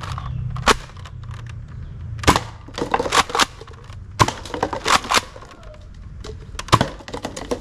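Sharp plastic clicks and knocks from handling a toy blaster, the louder ones about two, four and near seven seconds in, over a steady low hum.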